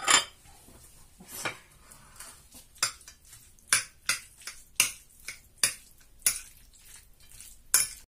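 Metal spoon clinking and scraping against a ceramic plate while stirring a chopped stuffing mixture, about a dozen irregular sharp clicks.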